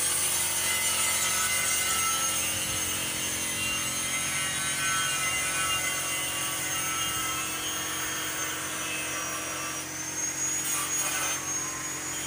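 Compressed-air paint spray gun hissing steadily as it sprays paint onto a truck chassis, with a thin high whistle running through the hiss.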